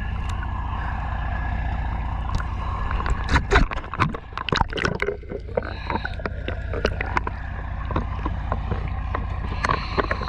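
Boat engine running steadily, with a cluster of knocks and clatter about three to five seconds in and scattered clicks after.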